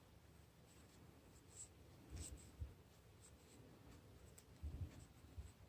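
Near silence, with faint scratchy rubbing from hands working on a nail and a few soft taps and clicks, the loudest about halfway through and again near the end.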